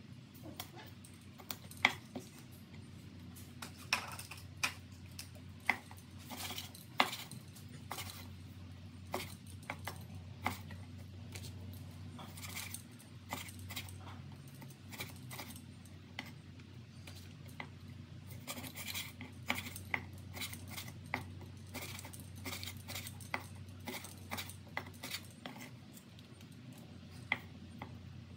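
Steel cleaver chopping fish on a wooden chopping board: sharp knocks of the blade on the board, irregular and a second or so apart, over a faint steady low hum.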